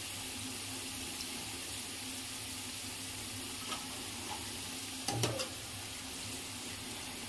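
Corn kernels deep-frying in hot oil in a kadhai: a steady, even sizzle. A short knock comes about five seconds in.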